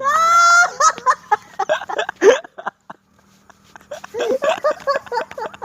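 Comedy sound-effect clips of laughter. A brief loud, high, held squeal opens it, then choppy laughing bursts. There is a short pause about three seconds in, then more rapid laughing syllables.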